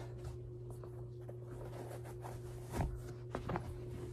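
Soft knocks and rustling of canvas slip-on shoes being pulled on and set down on carpet, the clearest knock about three seconds in, over a steady low hum of room tone.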